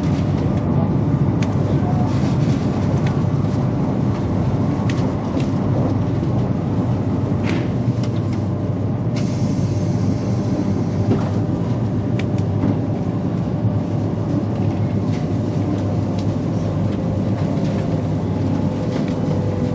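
Running noise of a 200 series Shinkansen heard from inside a passenger car moving at speed: a steady low rumble from the wheels and running gear, with a few light clicks. A hiss in the upper range gets louder about nine seconds in.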